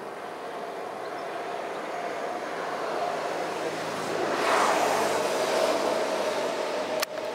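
A motorcycle approaching and passing close by: a steady engine hum with a rushing swell that builds to its loudest about halfway through, then eases as it moves away. A sharp click near the end.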